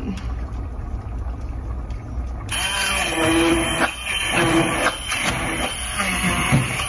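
Handheld immersion blender switched on in a pot of cooked vegetable soup about two and a half seconds in, its motor running as it purées the chunks, after a low steady hum.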